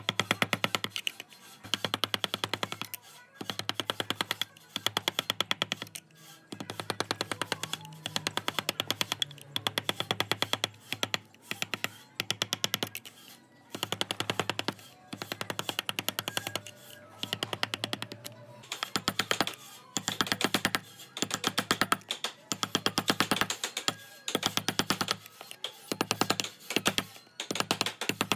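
Rapid sharp tapping on wood from carving work, in bursts of about a second with short gaps between them.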